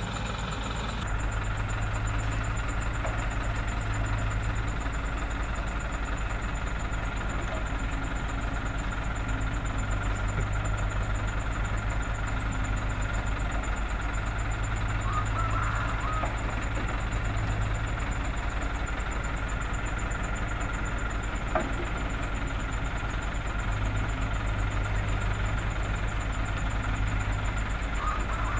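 Diesel engines of a Doosan DX55 excavator and a dump truck running steadily. The low engine sound swells and eases in stretches of several seconds as the excavator digs and loads soil. A single sharp knock comes about three-quarters of the way through.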